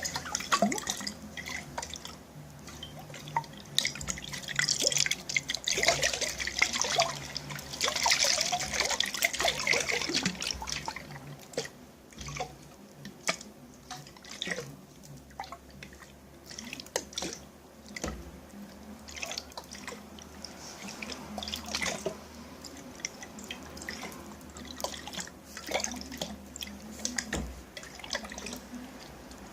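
Water dripping and splashing in containers, close to the microphone: irregular drips and small splashes, busiest in the first ten seconds, then sparser.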